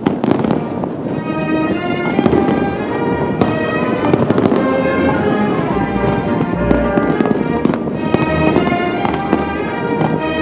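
Aerial fireworks shells bursting in an irregular string of sharp cracks and bangs, over music with sustained notes.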